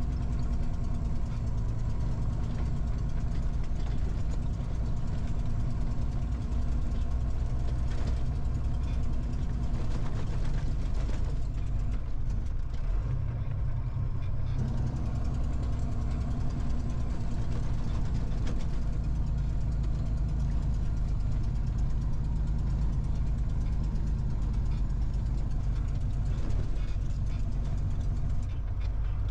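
Heavy truck's diesel engine running steadily as the truck drives on a dirt road, heard from inside the cab. Its note shifts about twelve to fourteen seconds in.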